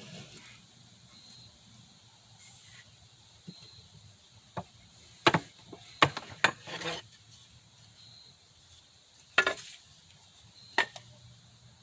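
Scattered sharp wooden knocks and clunks, about eight in all, as boards and hand tools are set down and handled on a workbench.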